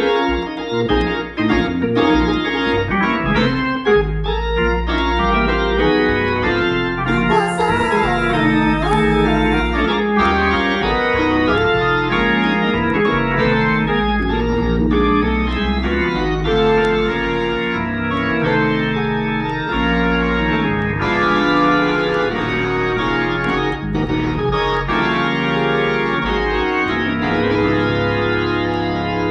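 Organ played live: sustained chords over held bass notes, changing from chord to chord without a break.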